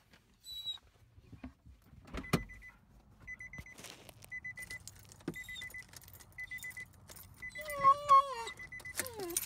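A car's warning chime beeping in short runs of quick high beeps about once a second, after a single knock about two seconds in. Near the end a Siberian husky gives a loud wavering whine, then a shorter falling one.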